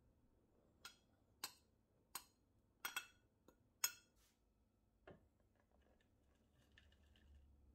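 Metal spoon tapping and scraping inside a glass bowl to knock out the last of the flour: about six sharp, ringing clinks over the first four seconds, the last one the loudest. After that there are only a few faint soft sounds as powdered sugar is poured.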